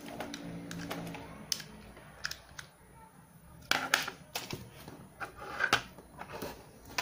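Clicks, taps and knocks of small plastic parts being handled, irregular and scattered, with a busier cluster of clicks about four seconds in.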